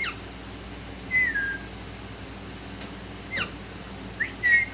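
A person and a pet parrot exchanging short whistles: about five brief whistled notes, some sweeping sharply down in pitch and one rising near the end.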